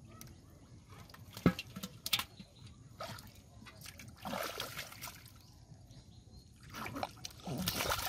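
Hands splashing and squelching in shallow muddy water while groping in the mud for fish, with scattered splashes and a sharp knock about a second and a half in. The splashing grows busier near the end.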